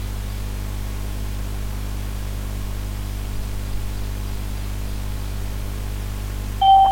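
Steady electrical hum with hiss from the recording chain, then a short electronic beep near the end, louder than anything else.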